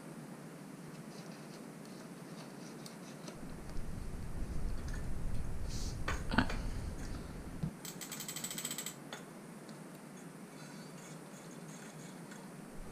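Hand work on a bicycle frame: a hex key and parts being handled, with a low rumbling stretch and a sharp click about six seconds in. It is followed by a quick run of rapid ratchet-like clicks lasting about a second, then a few light ticks.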